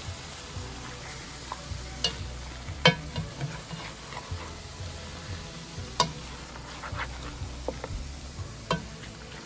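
A spatula stirring raw chicken pieces through wet seasoning in a stainless steel bowl, with several sharp knocks of the spatula against the bowl, the loudest about three seconds and six seconds in.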